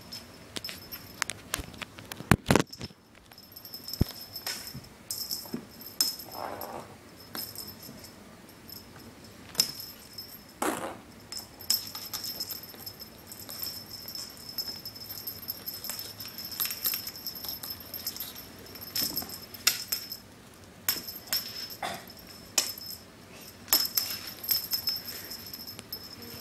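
Kittens playing with toys on a hardwood floor: frequent light taps, scrabbles and clatters of paws and toys on the wood, with a small bell jingling on and off.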